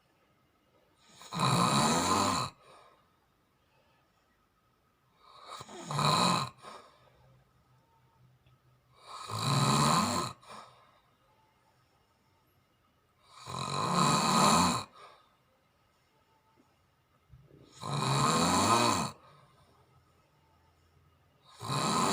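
Snoring in sleep: six snores, one about every four seconds, each lasting a second or so, with near quiet between them.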